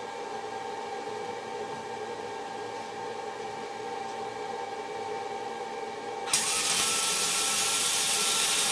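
A power tool runs with a steady whine. About six seconds in, a loud, harsh cutting or grinding noise starts and keeps going until the end.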